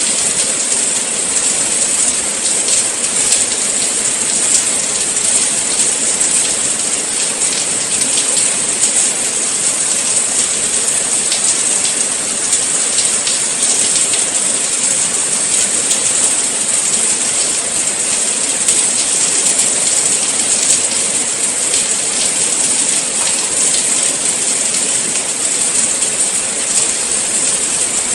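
Steady rain falling: a dense, even hiss with a fine patter of drops.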